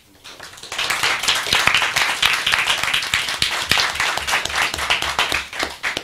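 Audience applauding: the clapping builds up within the first second, stays steady, and dies away near the end.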